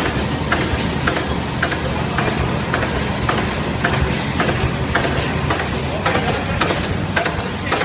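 Yii Lee film laminating machine running, a steady mechanical noise with a sharp regular click about twice a second.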